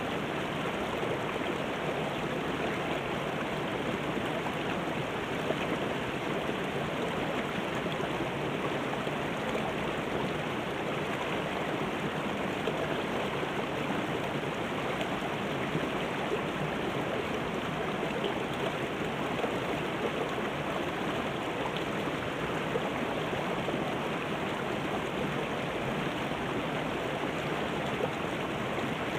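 Shallow mountain river running over boulders and small rocky cascades: a steady, even rush of water that does not change.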